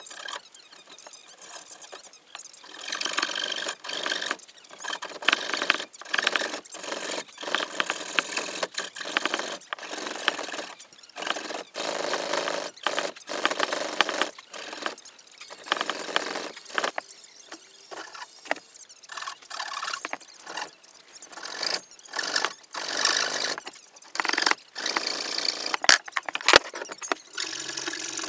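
Pull saw cutting a notch through a laminated softwood boat frame, rasping in a steady rhythm of strokes. Two sharp ticks stand out near the end.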